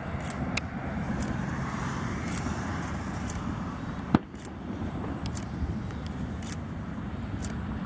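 Steady, distant engine rumble of a twin-engine airplane on its landing approach. A single sharp click sounds about four seconds in, and faint ticks come through now and then.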